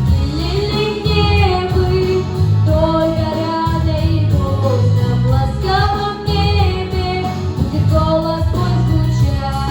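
A solo female voice singing a melody of long held notes over an instrumental backing track with a steady bass line.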